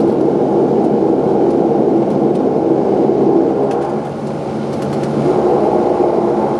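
Saab 340's twin turboprop engines and propellers droning steadily, heard from inside the passenger cabin; the drone dips briefly about four seconds in, then builds again.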